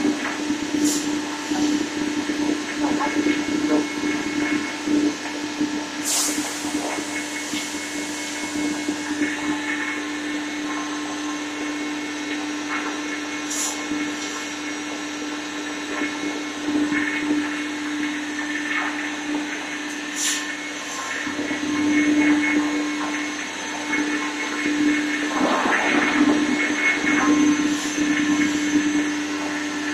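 Anderson CNC router running: a steady whine with a rushing noise under it, swelling louder in stretches, with a few brief sharp ticks.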